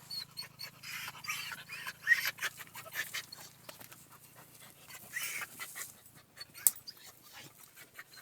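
Dog panting, with many short clicks and rustles around it.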